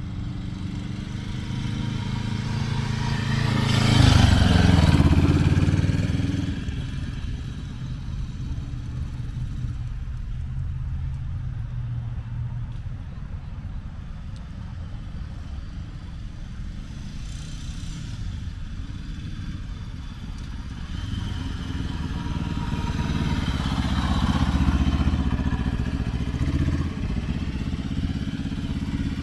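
1965 Honda CL77 305 Scrambler's air-cooled parallel-twin engine running as the motorcycle is ridden around. It swells as the bike passes close about four seconds in, drops as it moves off, then grows louder again as it comes back near the end.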